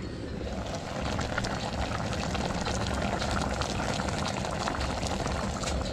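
Paksiw na bangus (milkfish in vinegar) simmering in an uncovered clay pot: a steady, crackly bubbling.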